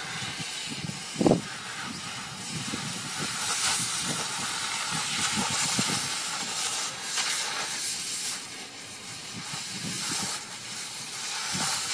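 Gas cutting torch hissing steadily as it cuts through a steel railway rail, with a single short thump about a second in.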